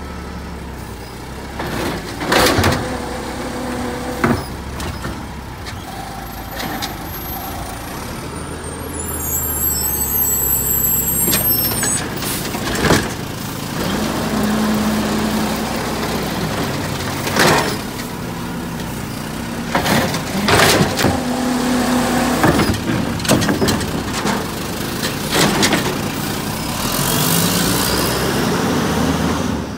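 Garbage truck at work: the engine runs and briefly holds steady, higher tones, with repeated loud clanks and bangs and air-brake hisses. Near the end the engine pitch rises as the truck pulls away.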